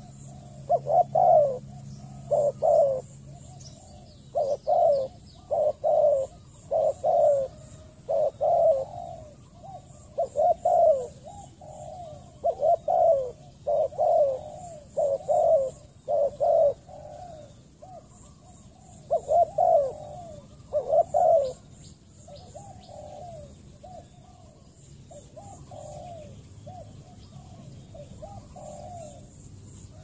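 Spotted doves cooing over and over in quick runs of low notes, louder for the first two-thirds and fainter near the end.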